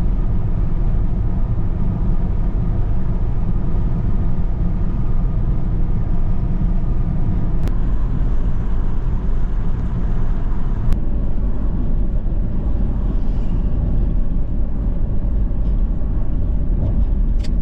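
Car driving along a road: a steady, loud low rumble of road and engine noise that starts suddenly, with a couple of faint clicks.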